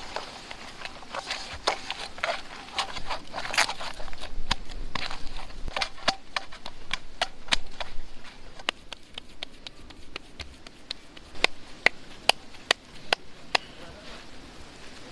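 Hands kneading bajra-flour dough in a steel bowl, soft squishing and scraping. Then the dough is patted by hand into a flat rotla: a run of sharp pats about two a second, loudest near the end.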